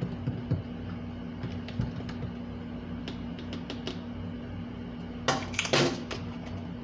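Metal spoon stirring iced tea in a plastic cup: light scattered clinks and ticks, then a louder clatter of spoon hits about five seconds in. A steady low hum runs underneath.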